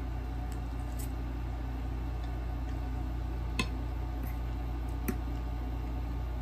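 Noodles being chewed, with a few sharp clicks of a metal fork against the bowl, the loudest about three and a half seconds in, over a steady low hum.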